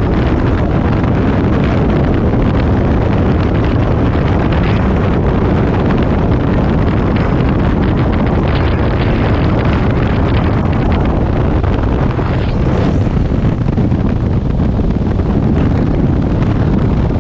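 Steady, heavy wind rush buffeting the camera microphone on an open motor trike moving at road speed, with the trike's engine running underneath.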